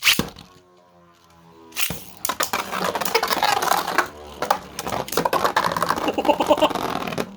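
Beyblades (a 3D-printed Beyblade against a Pro Series Valkyrie) launched with a sharp snap, spinning with a whirring hum, then clashing over and over with rapid clicks and knocks for about five seconds until the sound stops suddenly near the end.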